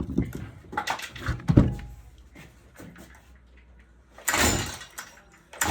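Handling knocks on a Stihl MS 162 chainsaw, then two pulls of its recoil starter cord, about four and five and a half seconds in. The carburettor and intake have been filled with water, so the engine is flooded and struggling to fire.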